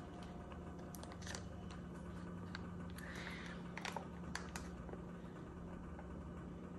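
Faint, scattered clicks and crinkles of a foil Capri Sun juice pouch being handled, with a soft sip through its straw about three seconds in, over a low steady hum.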